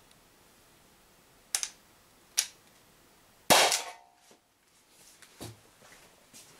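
Umarex HDP50 CO2 pistol fired once, about three and a half seconds in: a sharp shot followed by a brief metallic ring as the 12.5 mm steel ball strikes a tin can. Two shorter sharp clicks come before the shot, and a few softer knocks follow near the end.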